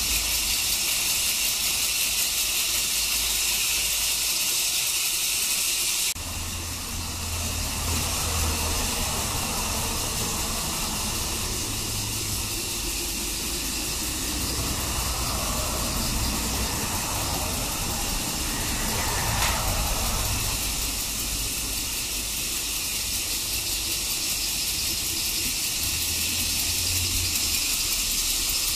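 Battery-powered Plarail toy trains running on plastic track: a steady whirring hiss of small motors, gears and wheels.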